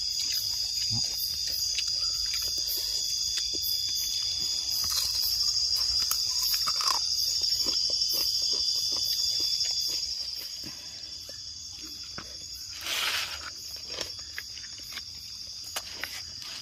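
A steady, high-pitched chorus of night insects trilling in the forest, growing quieter about ten seconds in. Small clicks and a brief burst of noise a few seconds before the end.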